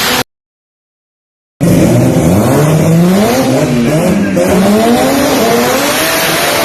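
Toyota Starlet engine revving, its pitch climbing and falling several times in quick succession before settling. The sound drops out to dead silence for just over a second near the start.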